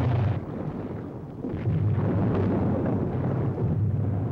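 Depth charges exploding underwater: a heavy rumbling blast that fades about half a second in, then a second long rumbling blast from about a second and a half in, with a further swell near the end.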